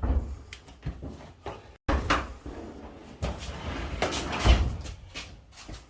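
Flexible dryer vent duct being bent and handled: irregular rustling and crinkling with knocks, the loudest knock about four and a half seconds in.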